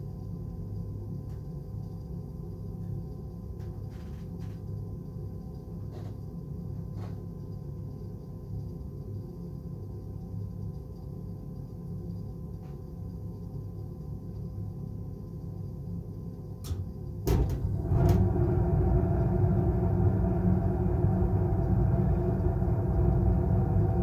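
Payne gas furnace running with a steady low hum. About 17 seconds in come a few sharp clicks, and then the furnace's running sound jumps much louder and stays steady: the next stage of its heating start-up cutting in.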